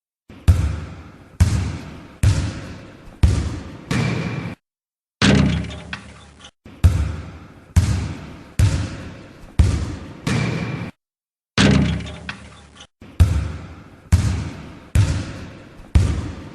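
Basketball bouncing on a hard floor, dribbled at about one bounce a second, each bounce a sharp slap that dies away, some with a faint ring. Twice the bouncing stops briefly, and a duller, rougher stretch of sound lasting over a second follows before the bouncing resumes.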